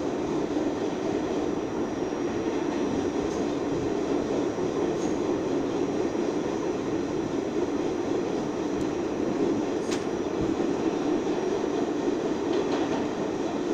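R68A New York subway car running at speed through a tunnel, heard from inside: a steady rumble of wheels on rail, with a few faint sharp ticks.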